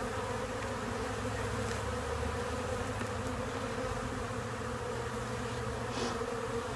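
Honey bees of an opened nucleus colony buzzing steadily around the hive, an even hum with no letup. A brief click about six seconds in.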